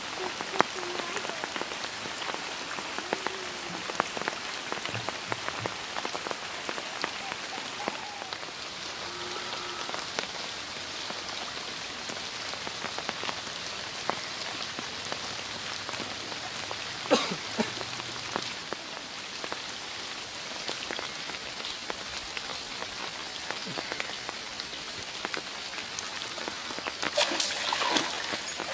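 Steady rain falling on a pond's surface, a constant patter with scattered drip ticks. Near the end, water splashing as a hooked fish thrashes at the surface.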